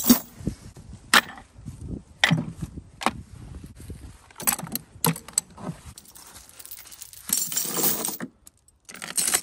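Gear being dropped into a wooden box on a trailer: a series of separate sharp knocks and clunks. About seven seconds in comes a longer run of metallic rattling and clinking as a steel chain is piled in, then another short clatter near the end.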